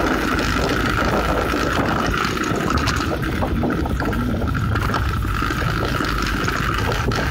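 Steady rushing wind noise on a phone's microphone, with a steady mid-pitched hum running under it.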